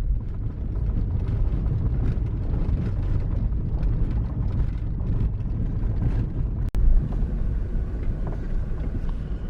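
A car driving on a rough, unpaved back road: a steady low rumble of tyres and suspension with faint small clicks and rattles. The sound cuts out for an instant about two-thirds of the way through.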